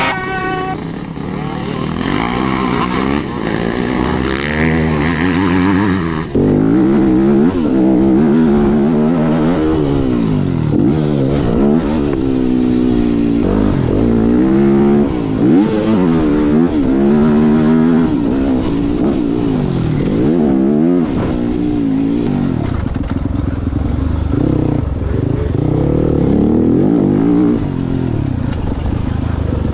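Yamaha 250 YZF motocross bike engine revving up and falling back again and again as the throttle is opened and closed while riding.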